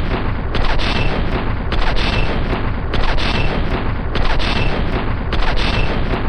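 Machine-gun fire sound effect: heavy, continuous rumbling gunfire from a short recording looped about every 1.2 seconds.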